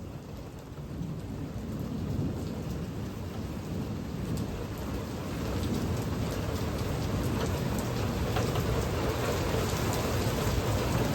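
Rain and thunder of a severe thunderstorm. The downpour grows heavier, with many drops ticking close by, while thunder rumbles low underneath.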